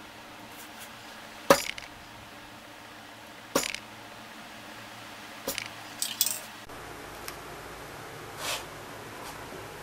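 A few sharp metallic clinks and knocks, one or two seconds apart, as spray paint cans are handled and set down.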